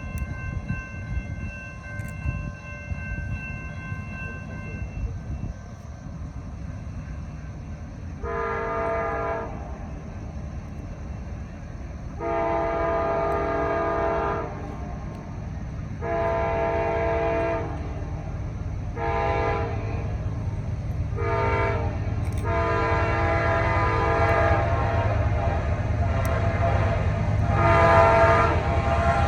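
Diesel locomotive air horn sounding a series of long and short blasts over the low rumble of an approaching train, growing louder as it nears. A fainter horn holds a steady chord for the first few seconds.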